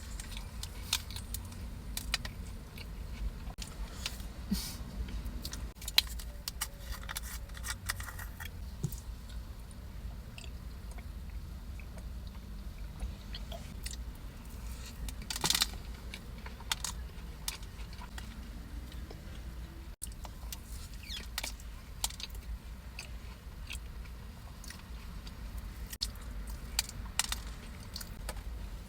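A person chewing and eating a bite of peanut butter cheesecake close to the microphone, with scattered wet mouth clicks and smacks over a steady low hum.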